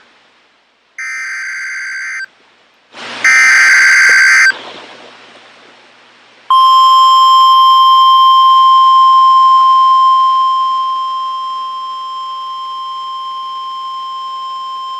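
Emergency Alert System SAME header data bursts: two harsh warbling bursts about a second long, a second apart. They are followed by the NOAA Weather Radio 1050 Hz warning alarm tone, one steady high tone held for about nine seconds, which grows quieter partway through. Together they signal the start of a severe thunderstorm warning broadcast.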